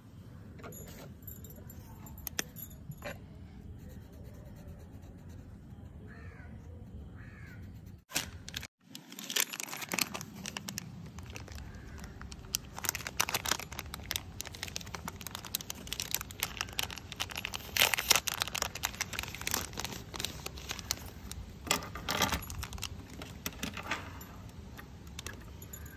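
Plastic mechanical pencils clicking and clattering as they are handled and set down on a wooden tabletop, over a steady low hum. The clicks are sparse at first and grow busy after about ten seconds.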